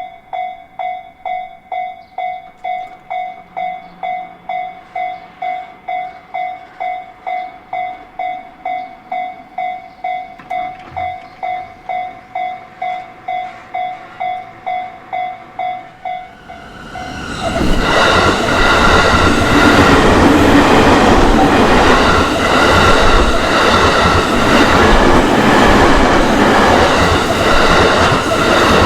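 Level-crossing warning bell ringing with an electronic two-beats-a-second tone. About 17 seconds in, a train passes through the crossing, loud, with a rhythmic clatter of wheels over the rail joints, and the bell is lost under it.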